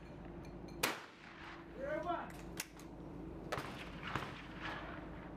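Shotguns firing at clay targets: one sharp shot about a second in, then two more shots about two-thirds of a second apart a little past the middle.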